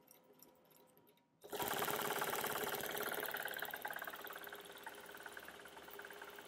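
Computerized longarm quilting machine starting up about a second and a half in and stitching a circle: a rapid, even needle clatter that settles a little quieter after a couple of seconds.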